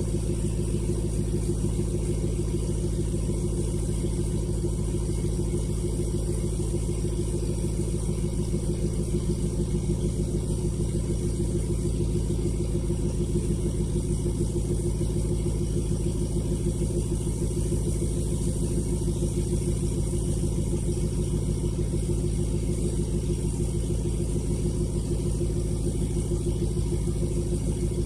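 Ford 6.7 Powerstroke turbodiesel V8 idling steadily, a low, even exhaust rumble with no change in speed.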